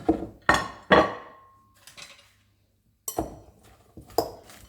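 Kitchen utensil knocking and clinking against a bowl while salad ingredients are tipped in and mixed: three clattering knocks in the first second, one ringing briefly, then a pause and two more knocks.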